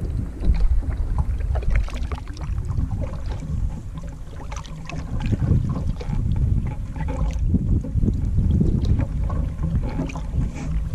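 Wind rumbling on the microphone while a canoe is paddled across open water, with small splashes and drips from the paddle.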